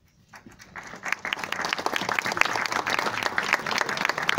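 Audience applauding: a few claps start about half a second in and swell within a second into steady, dense clapping from many hands.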